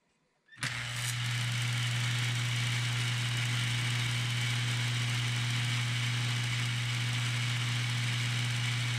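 Lionel 3656 cattle corral and cattle car's vibrator mechanism switched on about half a second in, buzzing steadily with a strong low hum and a rattle as the vibrating plates shake the toy cows along. It is running as it should in a test after restoration.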